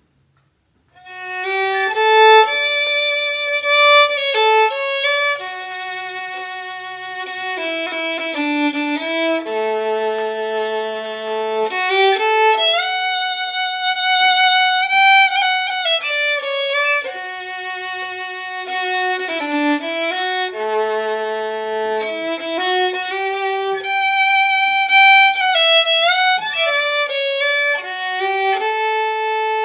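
Background music: a violin playing a slow melody of long held notes with slides between them, starting about a second in.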